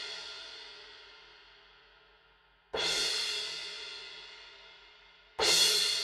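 Aisen Dirt Series B20 bronze cymbals struck with felt mallets: single hits about three seconds in and again near the end, each ringing out and slowly dying away. The ring of an earlier hit is fading at the start.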